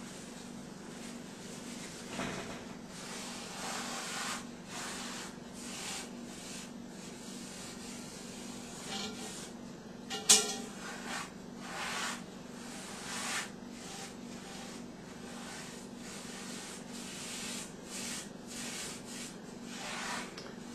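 Paper towel soaked in vegetable oil rubbed over a cast-iron Dutch oven in irregular wiping strokes, with one sharp knock about halfway through.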